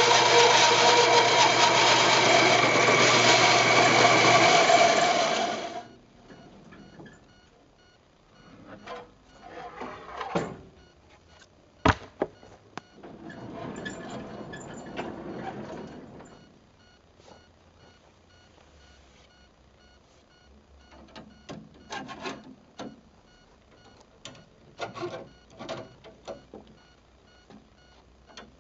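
A power tool's motor running steadily and loudly, stopping abruptly about six seconds in. Then quieter workshop handling noises follow: scattered knocks and taps, with one sharp crack about twelve seconds in.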